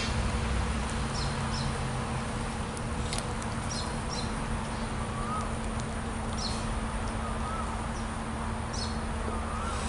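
Outdoor ambience: a steady low hum and hiss, with short high chirps from small animals every second or two and a few soft rising-and-falling whistles in the second half.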